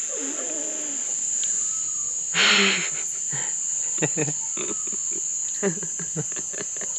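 Crickets trilling in a steady, continuous high tone, with a short loud burst of voice about two and a half seconds in and a few brief clicks later on.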